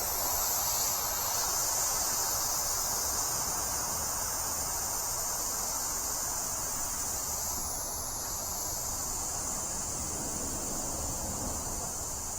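Air hissing steadily out of an e-bike inner tube's valve, held open with a screwdriver to deflate the tire. The hiss starts suddenly and slowly gets a little quieter as the pressure drops.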